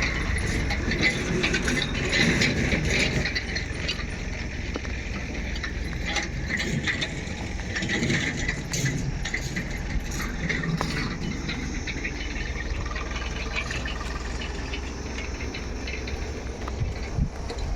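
Construction-site noise: a steady low rumble with scattered knocks and rattles throughout.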